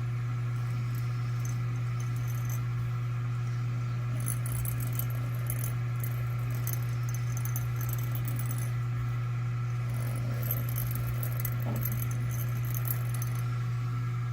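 Hand file scraping a screw head in several short spells of strokes, as the screw is spun against the file to round and shrink its head. A steady low hum runs underneath.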